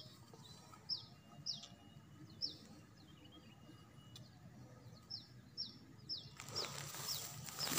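A small bird repeating short, high chirps that fall in pitch, about one or two a second. A steady hiss comes up about six seconds in.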